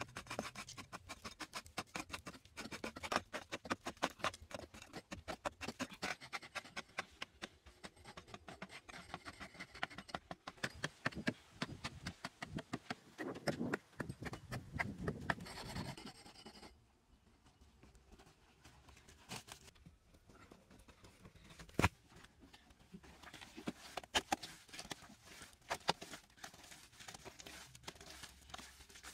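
Hand hoe chopping and scraping into hard dry clay soil, a dense run of quick sharp strikes. After about sixteen seconds it turns quieter, with scattered scrapes and loose earth being scooped, and one sharp knock a few seconds later.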